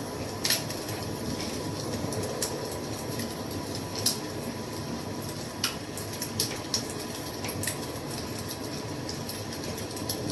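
Wood fire crackling: a steady low rush of burning with irregular sharp pops and snaps, the loudest about half a second in and about four seconds in.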